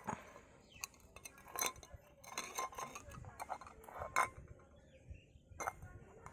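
Small birds chirping: short, sharp calls at irregular intervals, about a dozen in all.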